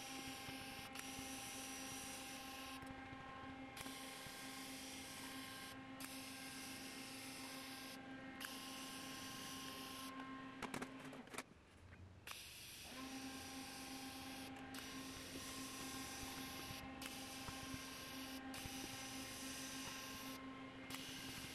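TIG welding arc on a laser-cut steel tab-and-slot engine mount: a steady hiss over a low electrical buzz. The arc breaks off briefly several times, and just past the middle a few clicks come before it stops for about a second and a half and then strikes again.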